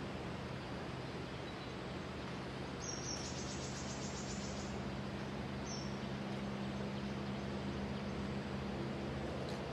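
Outdoor woodland ambience: a steady background hiss and low hum, broken by a few brief high-pitched bird chirps and a short high trill about three seconds in.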